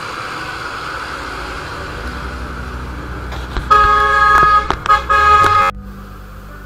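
Motorcycle riding along a road with steady engine and wind noise; about three and a half seconds in, a loud vehicle horn sounds for about two seconds, broken twice into short blasts, and cuts off suddenly.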